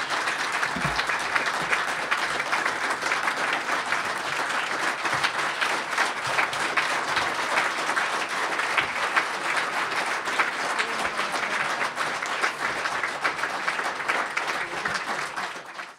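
A crowd applauding, a dense steady clapping that runs on and fades out at the very end.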